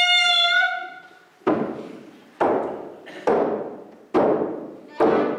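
A held high note fades out. Then come five heavy thumps at an even beat, a little under a second apart, each ringing on in the hall. The last thump lands as fiddle music starts.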